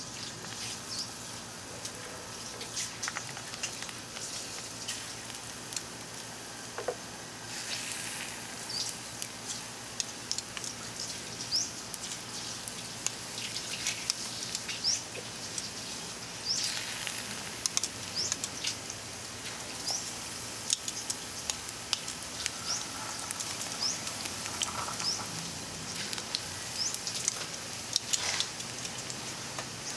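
Battered water spinach leaves frying in shallow oil in a pan: a steady sizzle peppered with frequent small crackling pops. The sizzle swells about eight seconds in and again about halfway through, as more pieces go into the oil.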